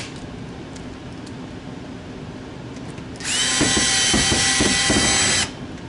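Cordless drill/driver run for about two seconds, a steady whine, driving a screw into the sheet-metal access panel of an air handling unit. It comes in about three seconds in, after a stretch of lower steady background noise.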